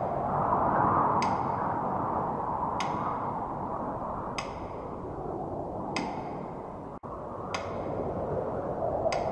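Steady ride noise inside a moving vehicle, with a short ringing ping repeating evenly about every one and a half seconds.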